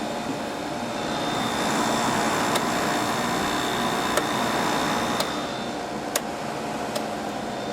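Samsung 5,000 BTU window air conditioner running on high cool: a steady rush of fan air over a hum from its rotary compressor, swelling a little louder through the first half. A few light clicks are scattered through it.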